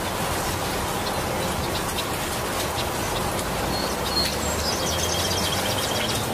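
Steady rain falling on papaya and banana leaves, with a few short, high bird chirps starting a little under four seconds in.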